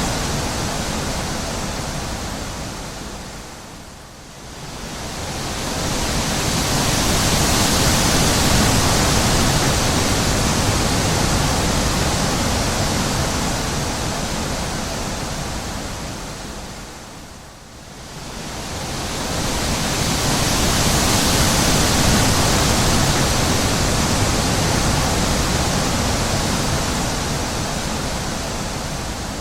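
Wind blowing in slow gusts, an even hiss that swells and dies back in long waves, nearly dropping away about four seconds in and again near eighteen seconds.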